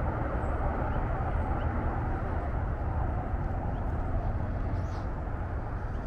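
Steady drone of highway traffic, heaviest in the low range, with a few faint, short high bird calls over it, one about five seconds in.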